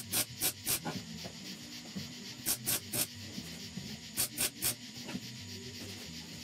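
Short, harsh scratchy bursts of metalwork on a truck's steel inner roof panel, coming in quick groups of three or four about a quarter second apart, over a faint steady hum.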